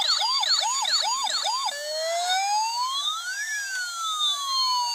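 Electronic siren in a fast yelp, about three sweeps a second, that changes after about a second and a half to a slow wail, rising for about two seconds and then falling, with several higher tones sweeping across it.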